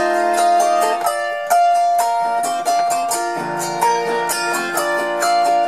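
Acoustic instrumental break on plucked strings, a run of quick picked notes with no singing.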